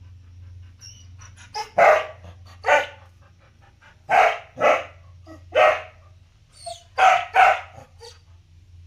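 A dog barking repeatedly: about seven loud, sharp barks, some in quick pairs, over a steady low hum.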